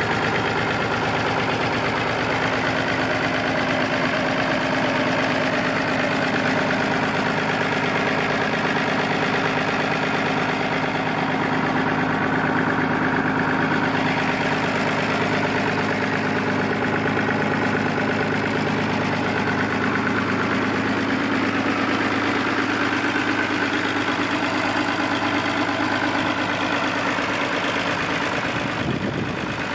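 Massey Ferguson 135 tractor engine idling steadily.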